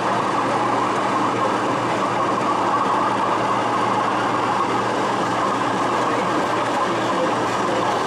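Model train running along layout track: a steady rumble of wheels on rail and the locomotive's motor.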